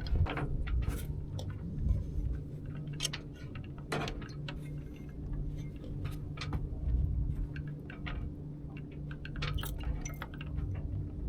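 Irregular light clinking and tapping of loose hard gear aboard a small sailing yacht, many small knocks at uneven intervals over a steady low hum.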